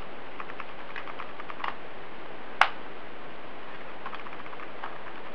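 Small plastic clicks and taps as a wireless computer mouse is handled during battery fitting, with one sharp snap about two and a half seconds in, over a steady hiss.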